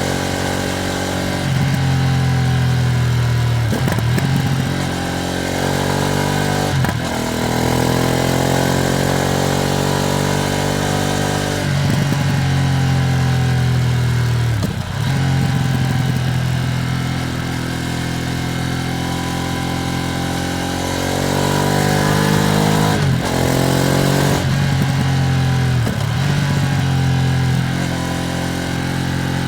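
Ducati Streetfighter V2S V-twin engine pulling under acceleration while running in. The engine note rises through the revs, dips sharply at each gear change about five times, then climbs again.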